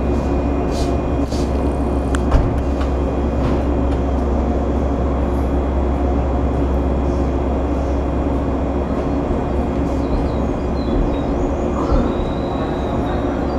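Steady electrical hum and drone from coupled, standing 223 series and 5000 series electric trains. A sharp click comes about two seconds in, along with a few brief hisses in the first few seconds.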